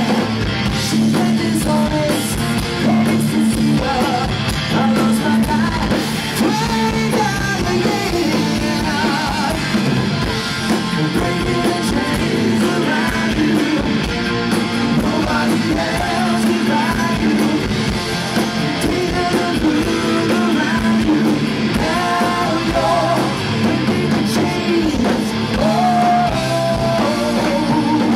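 A rock band playing a song, with electric guitar, bass guitar and drum kit going steadily and a melodic lead line wandering over them.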